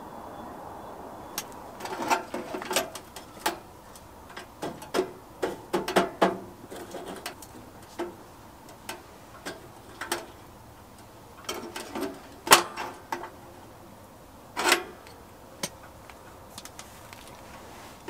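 Irregular knocks, clunks and clatter as a compressed sawdust briquette log is set onto the grate of a Cyrus H+ camping wood stove over glowing embers. The knocks come in two busy spells and thin out near the end.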